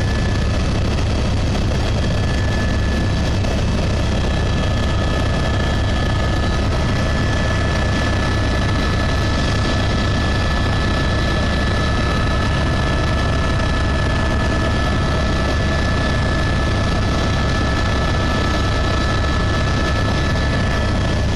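Helicopter in flight heard from inside its cabin: a loud, steady rotor and engine din with a steady high-pitched whine over it.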